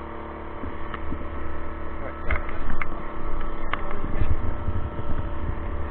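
Small gas generator engine running at a steady speed on a moving e-bike, with wind rumbling on the microphone and a few light clicks.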